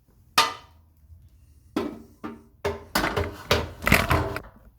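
Kitchen cookware being handled: one sharp knock with a short ring, then about a second and a half later a rapid run of clanks and bangs, some of them ringing like metal.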